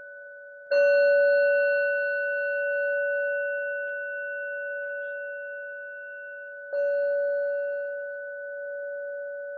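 Singing bowl struck twice with a mallet, about six seconds apart, each strike ringing out in a clear, long, slowly fading tone with a gentle waver; the earlier ring is still sounding at the start. It is rung as a meditation bell inviting the listener to stay in the pause.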